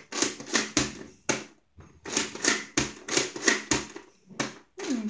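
Toy saw chain of a Nerf Zombie Strike Brainsaw being worked by hand: a plastic ratcheting clatter in repeated strokes, about three a second, with two short pauses.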